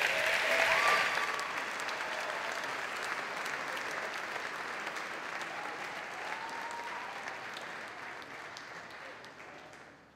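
Audience applauding, loudest about a second in and fading away near the end.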